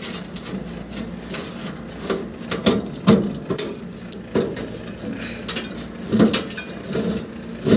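Irregular clicks, knocks and light rattles of hands working on a split AC outdoor unit, routing and fitting the fan motor's wire.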